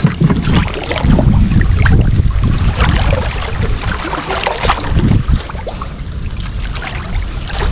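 Water sloshing and splashing irregularly as people wade and grope for fish by hand, over a low rumble of wind on the microphone.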